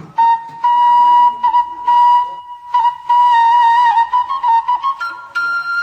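Background music led by a flute playing long held notes with slight wavers, stepping up to a higher note near the end.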